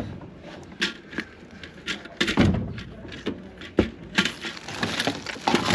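Metal hand tools clattering and knocking in an overfull tool chest drawer as it is pulled open and rummaged through: irregular sharp clicks and knocks, with heavier thuds about two seconds in and again near the end.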